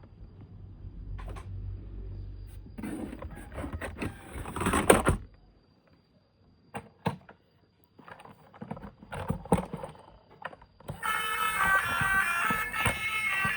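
Toys and packaging being handled: scattered clicks and rustles over a low hum, with a louder burst about five seconds in, then a short lull. Music starts near the end.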